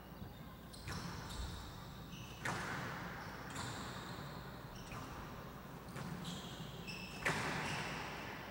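A squash rally on a glass court: the ball is struck by the rackets and slaps off the walls in about seven sharp hits, roughly one a second, the loudest near the end. Short high squeaks of players' shoes on the court floor come between the hits.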